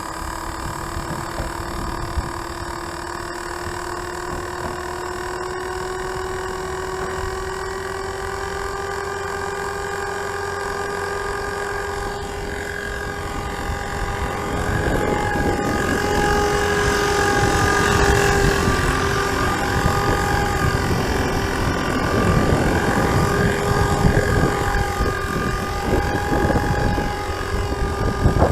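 FORZA450 radio-controlled helicopter running, with a steady motor-and-rotor whine that climbs slowly in pitch over the first dozen seconds. From about halfway it grows louder and wavers, with wind buffeting the microphone.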